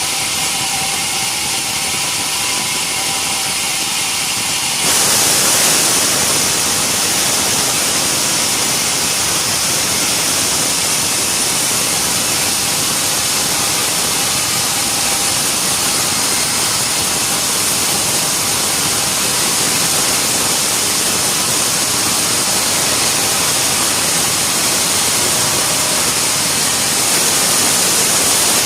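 Sawmill saw cutting through a log: a loud, steady hiss of blade through wood with machine noise under it. It changes abruptly to a fuller, louder sound about five seconds in.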